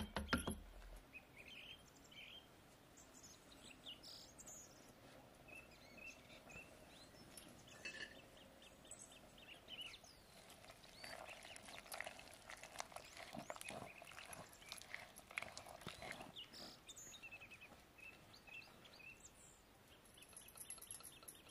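Faint birds chirping. For several seconds in the middle comes a dense run of soft rapid knocks: a wooden dal masher mashing boiled chana dal and bottle gourd in a pot.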